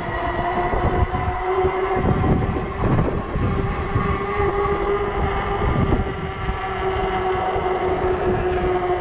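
Ecotric 48V fat-tire e-bike under way: a steady whine with several stacked tones from the motor and rolling tires, pitch drifting slightly with speed. Underneath, wind buffets the microphone with an uneven low rumble.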